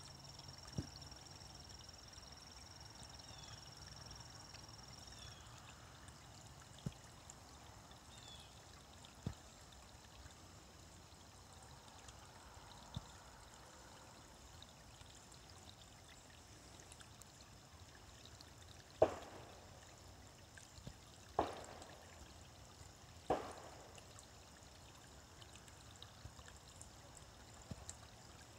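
Small shallow creek trickling over stones, a steady faint water sound. Three sudden sharp sounds, each fading quickly, come about two seconds apart in the last third.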